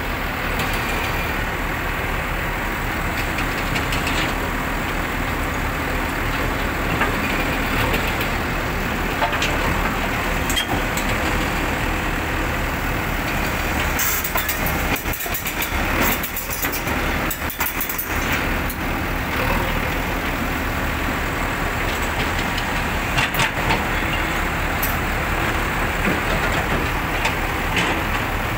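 Komatsu PC130 hydraulic excavator's diesel engine running steadily under load as the machine tracks and works its boom. Sharp metallic clanks and knocks come in a cluster around the middle, and once more a little later.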